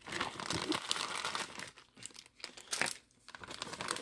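Clear plastic bag and the plastic-wrapped items inside it crinkling as they are handled, in irregular bursts with short pauses.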